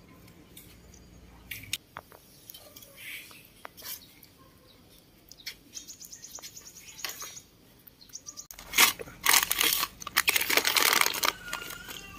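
Sparse faint clicks and short high chirps, then after a cut about eight and a half seconds in, loud close rustling and crinkling that is the loudest part. A short squeaky glide comes near the end.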